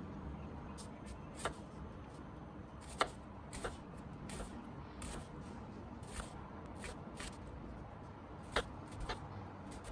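Kitchen knife slicing an onion on a wooden cutting board: irregular knocks as the blade meets the board, two louder ones about three seconds in and near the end.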